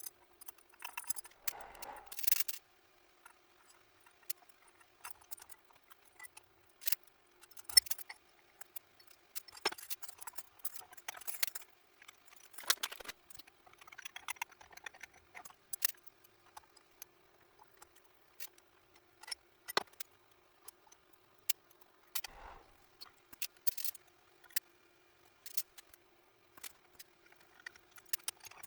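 Small metal parts and hand tools clinking and tapping as they are handled, a string of irregular sharp clicks with short pauses between, over a faint steady hum.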